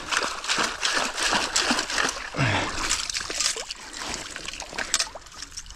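Long-handled perforated sand scoop dug into the bottom of shallow water and lifted out: splashing and sloshing, then water draining from the scoop of mud, quieter with scattered drips in the last couple of seconds. A short vocal sound comes about two and a half seconds in.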